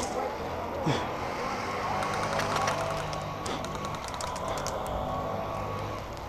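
Airsoft gunfire: one sharp shot about a second in, then runs of faint rapid clicking shots farther off, over a steady low hum.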